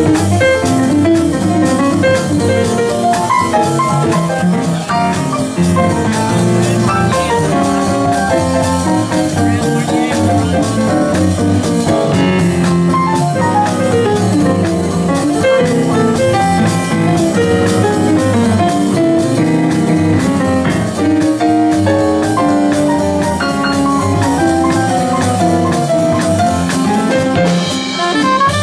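Live traditional jazz band playing, with the piano, a Yamaha Motif XF8 keyboard, to the fore over the rhythm section's steady beat.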